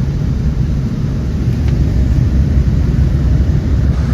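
Steady low rumble of an airliner's engines and airflow heard from inside the passenger cabin.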